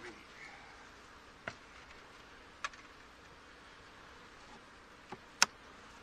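Honey bees humming over an open hive box, with a few short clicks and knocks of a metal hive tool against the wooden frames, the loudest a sharp crack near the end.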